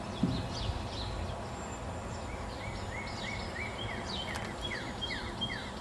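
Songbirds chirping: a long run of short, quick high notes repeated over and over, over a steady low rumble.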